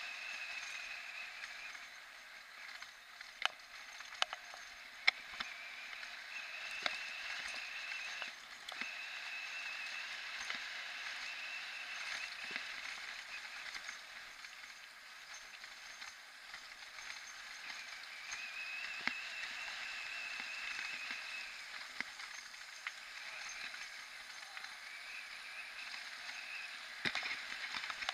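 Mountain bike rolling along a paved road, heard from the rider's own bike: steady tyre and wind noise with a high buzzing that comes and goes. A few sharp knocks sound as the bike goes over bumps, a cluster in the first few seconds and one more near the end.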